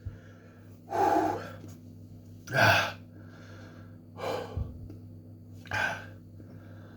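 A man breathing hard through his mouth in sharp gasps, about one every second and a half, with softer breaths between them. He is panting against the burn of an extremely hot chilli sauce.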